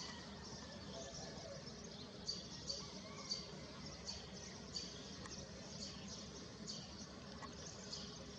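Small birds chirping: short, high chirps repeated every half second to a second, over a steady low background noise.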